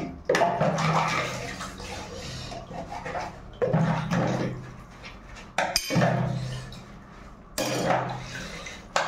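Water sloshing and splashing in a plastic basin as dishes and plastic containers are washed by hand, coming in repeated surges every couple of seconds.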